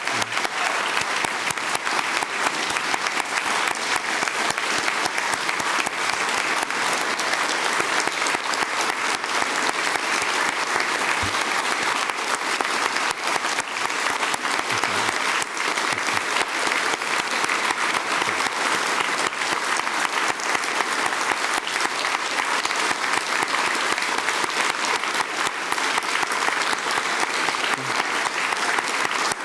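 Audience applauding: dense clapping from a large crowd that holds steady without a break.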